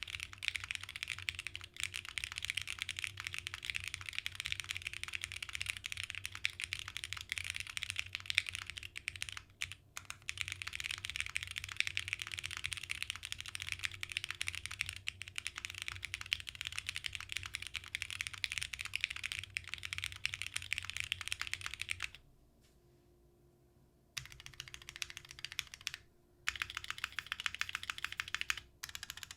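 Continuous fast typing on a Unikorn EE custom mechanical keyboard: SP Star Meteor White switches on a half aluminium plate with no dampening, under ePBT PBT keycaps. The typing stops for about two seconds roughly three quarters of the way through, with a few shorter breaks elsewhere.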